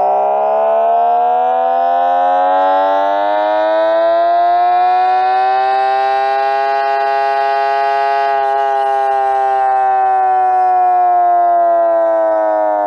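Artificial engine sound made by a homemade optical rig: a DC motor spins a patterned cardboard disc past a photoreflector, and the signal is amplified through a speaker, imitating an engine pull on a dyno. It is a buzzy tone full of overtones whose pitch climbs slowly for about seven seconds, then sinks back as the disc slows.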